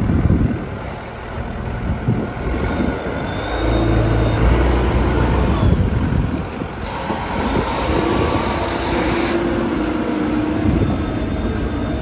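JCB 214 backhoe loader's diesel engine running, twice settling into a steadier, higher note for a few seconds.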